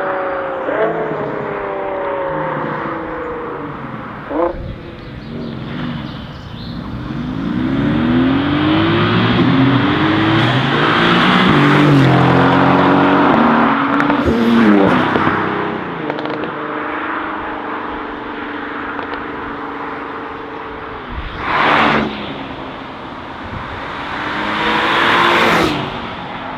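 Sports car engines at high revs: a note falling away, a sharp exhaust pop about four seconds in, then a hard acceleration whose pitch climbs and drops back several times through gear changes. After that comes a steadier engine note, and two short rushing pass-bys near the end.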